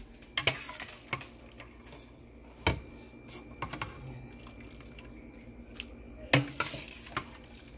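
Scattered light clicks and clinks of a ladle against the pot and serving bowl as broth is scooped out, about seven in all, with sharper knocks near the middle and near the end.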